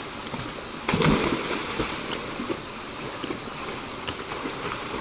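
A person jumping into a river pool, hitting the water with a loud splash about a second in, over the steady rush of the flowing river.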